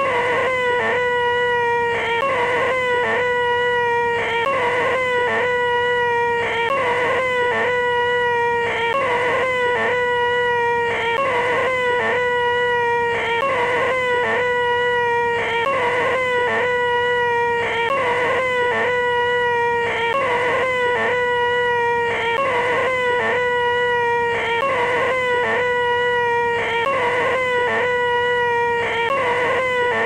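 A man's voice making a loud, high-pitched 'eeeeh' yell held at one steady pitch, the 'most annoying sound in the world', looped over and over with a short break every couple of seconds.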